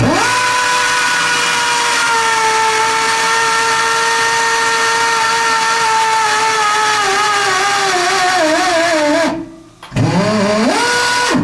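Power-driven tube roller expanding a steam locomotive boiler tube into the tube sheet: the motor's whine sinks slowly in pitch and begins to waver as the rolls tighten the tube, stops about nine seconds in, then spins up again near the end.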